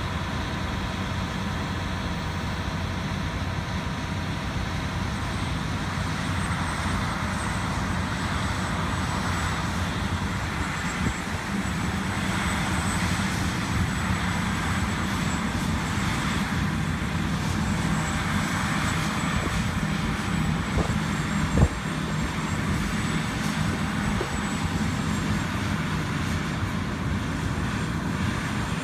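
John Deere S-series combine running steadily while harvesting wheat, with a constant low engine drone and a thin high whine. A single sharp knock sounds about 21 seconds in.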